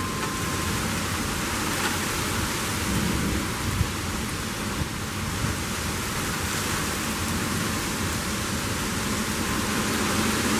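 Heavy rain and strong wind of a severe thunderstorm: a steady, even rush of noise with an unsettled low rumble beneath it.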